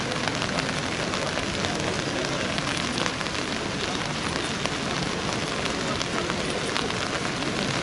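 Steady rain falling, with many small drops ticking on hard surfaces.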